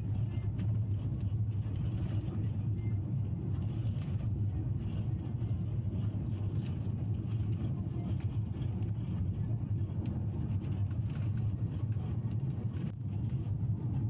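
Steady low engine and road rumble inside a small passenger minibus driving along a mountain road.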